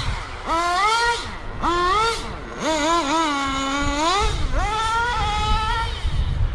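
Small nitro engine of a 1/10-scale RC truck revving in four throttle bursts, the pitch climbing through each one and falling away between them.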